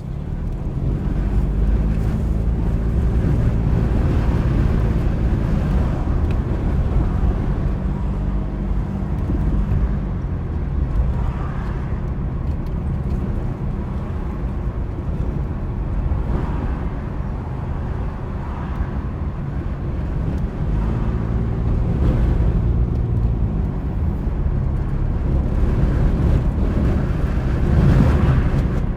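A car driving, with a steady low road and tyre rumble; the engine's note stands out for several seconds near the start and again later, fading in between.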